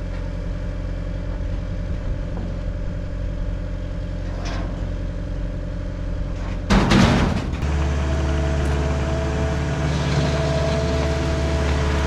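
Caterpillar 259D's diesel engine idling steadily. About seven seconds in there is a short, loud clattering burst, and the engine then runs on at a higher, steady speed.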